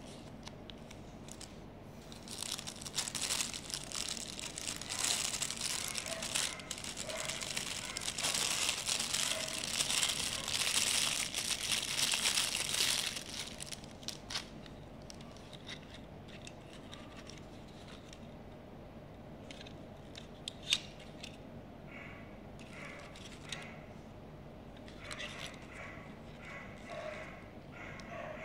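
Plastic packaging crinkling and rustling as it is handled for about ten seconds, then quieter handling with scattered clicks, one of them sharp.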